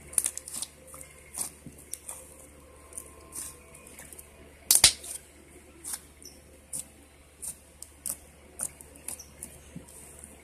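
White slime being kneaded and pressed by hand, giving irregular little pops and clicks, with one louder pop about five seconds in.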